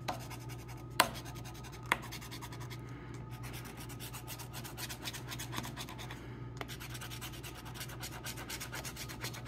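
A coin scratching the coating off a Cash Explosion scratch-off lottery ticket in rapid short strokes. There are two sharp clicks about one and two seconds in.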